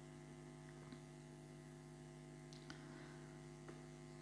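Near silence with a faint steady electrical hum and a few faint clicks.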